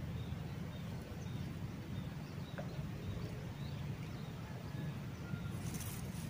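Outdoor rural ambience: a steady low rumble under faint, evenly repeated high chirps, with a brief hiss near the end.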